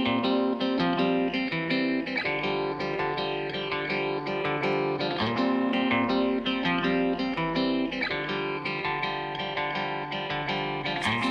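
Background music led by guitar, plucked and strummed chords with a steady rhythm.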